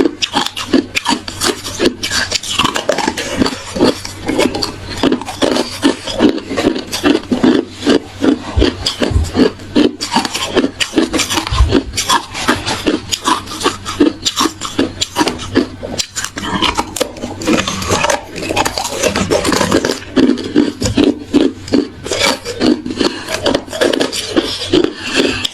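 Close-miked chewing of hard ice, with rapid crunches running on without a break, several a second.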